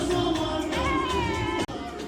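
Music with a singing voice over steady accompaniment, cut off abruptly about one and a half seconds in and followed straight away by a quieter stretch of different music.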